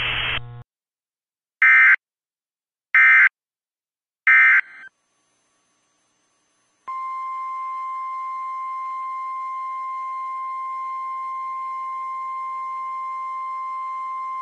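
NOAA Weather Radio weekly test signal. First come three short, loud bursts of SAME digital header data, an electronic warble about a second and a half apart. After a pause, the steady 1050 Hz warning alarm tone starts about seven seconds in and holds unbroken. A moment of radio static cuts off just after the start.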